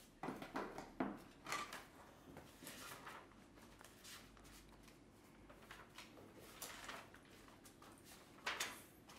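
Quiet room tone with a few faint, short rustles and knocks, the loudest about a second in and again near the end.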